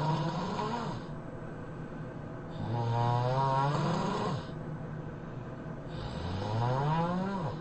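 A man snoring heavily: three long, loud snores about three seconds apart, each a drawn-out buzzing tone that rises in pitch, with a breathy hiss over it. The first is already under way at the start and fades about a second in.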